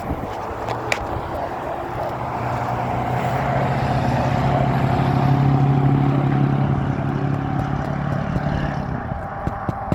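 An engine passing by: a steady hum that grows louder to a peak about halfway through, then fades. Several sharp taps come near the end.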